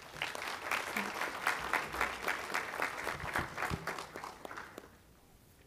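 Audience applauding with many hands clapping, dying away about five seconds in.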